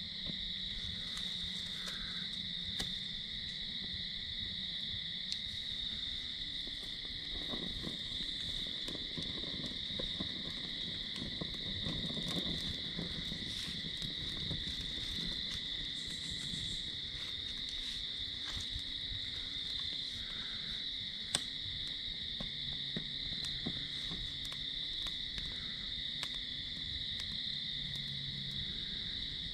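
Steady night chorus of crickets, a continuous shrill trill at two pitches, with scattered small snaps and crackles from pine needles and twigs catching as a campfire is lit.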